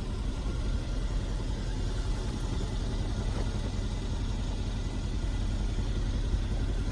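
A 2014 Mercedes-Benz SL550's 4.7-litre twin-turbo V8 idles steadily while its power retractable hardtop runs through its opening or closing cycle.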